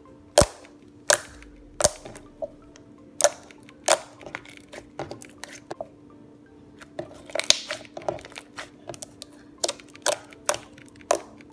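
Thick, putty-like white slime being squeezed and stretched by hand, with trapped air popping out in sharp, irregular clicks and pops. A few loud pops come in the first four seconds, and a quicker run of smaller clicks follows in the second half.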